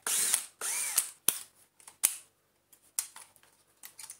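Hard plastic of a vacuum cleaner wand being prised and unclipped by hand: two short scraping rasps in the first second, then a series of sharp plastic clicks and snaps about once a second.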